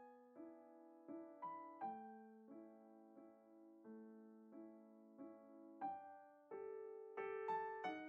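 Quiet background piano music: slow, gentle notes and chords, each struck and left to fade, a new one about every half second to second.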